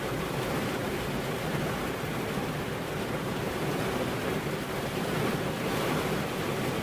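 Steady rain falling, an even, unbroken hiss with no distinct drops or thunderclaps.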